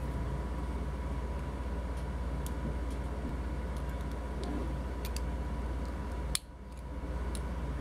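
Steady low hum with faint light clicks of 3D-printed plastic caster parts being handled. A sharper click comes about six and a half seconds in, and the hum drops away briefly after it.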